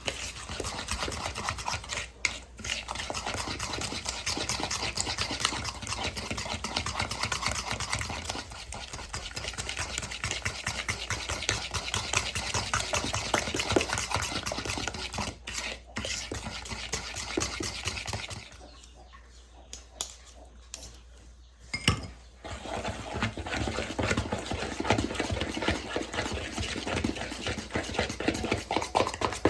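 A fork beating eggs and sugar in a bowl: rapid, steady clicking and scraping of the fork against the bowl. It stops briefly a few times, then pauses for a few seconds about two-thirds of the way through before a sharp tap and more beating.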